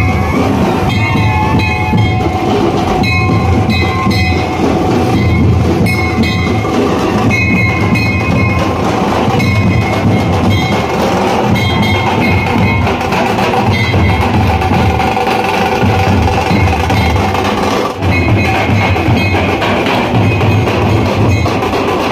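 Loud procession drum band: large drums beaten hard in a heavy rhythm, with a high melody in short repeated phrases over them.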